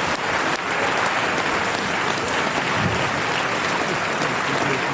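A large audience applauding steadily, a dense, even clapping from many hands.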